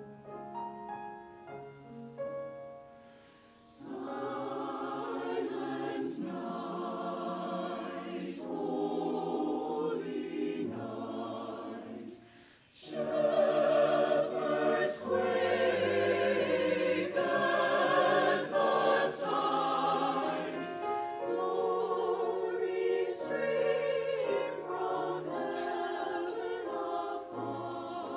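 Mixed church choir singing a Christmas cantata in parts. Short breaks about three seconds in and again near the middle, after which the singing comes in fuller and louder.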